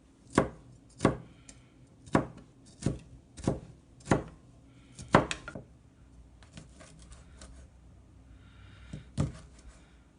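Knife chopping on a cutting board: slow, uneven strokes, about seven sharp knocks in the first half, a lull with light clicks, then one more knock near the end.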